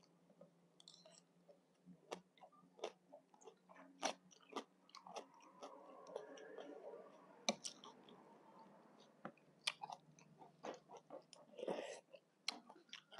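Close-up chewing of spicy green papaya salad, mouth right by a clip-on microphone: many sharp, wet mouth clicks at an irregular pace.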